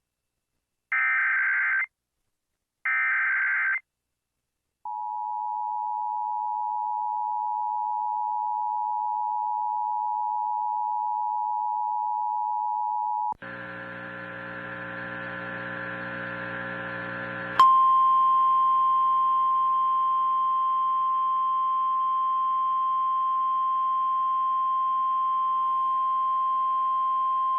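Emergency Alert System tones from NOAA Weather Radio's computer-voiced (CRS) broadcast. First come two short bursts of warbling SAME data, the end-of-message code closing a tornado warning. Then the two-tone EAS attention signal sounds for about eight seconds, a harsh buzz follows for about four, and after a click comes the steady 1050 Hz weather-radio warning alarm tone for about ten seconds, heralding the next tornado warning.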